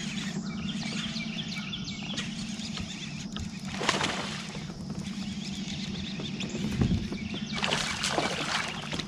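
Water splashing twice around a fishing kayak, about four seconds in and again near the end, over a steady low hum.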